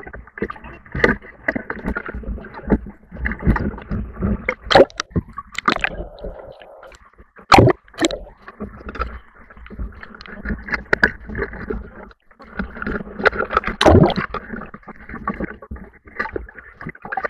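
Rushing river-rapid water with repeated sharp splashes from a swimmer thrashing in the current. Around the middle the sound turns muffled and gurgling for a moment as the camera goes under the surface.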